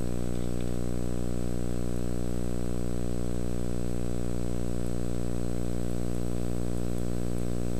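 Steady electrical hum: a low, unchanging buzz with many even overtones.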